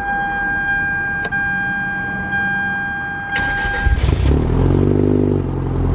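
A steady high electronic tone with two short clicks. About four seconds in it gives way to the louder low running sound of a Hyundai Genesis Coupe's engine and exhaust.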